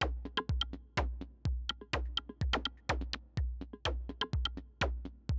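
Electronic intro music with a drum-machine beat, about two beats a second.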